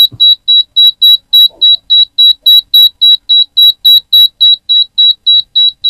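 Yongma digital rice cooker's control-board buzzer beeping nonstop, a loud high-pitched beep about four times a second. The endless beeping, with a blinking display, is the fault. The technician traces it to a 5-volt supply that rises and falls, a problem in the power-supply section.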